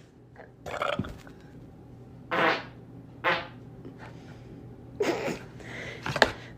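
A person burping in a run of about five short, separate belches, some with a croaky pitched tone.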